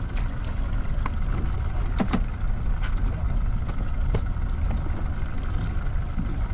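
Steady low rumble of a fishing boat's engine, with a few scattered light clicks and knocks.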